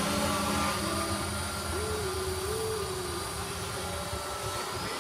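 Quadcopter drone in flight, its motors running with several steady tones that shift up and down in pitch as the speeds change.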